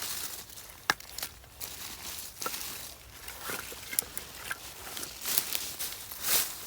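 Rustling with scattered small clicks and crackles, and a few short swells of rustle near the end.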